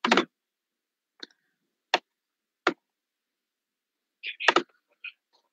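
A few isolated clicks spaced roughly a second apart, with dead silence between them, typical of computer mouse clicks picked up through a video call's microphone. A brief, louder noise comes about four and a half seconds in.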